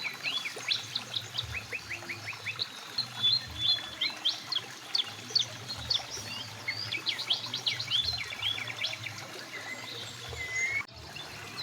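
Several small birds chirping and singing in rapid, overlapping notes over the steady hiss of a flowing mountain river, with a brief break in the sound near the end.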